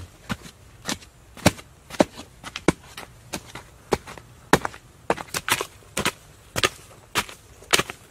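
Short-handled digging tools chopping into hard, root-filled earth in an uneven rhythm of sharp knocks, about two a second, as two diggers strike in turn.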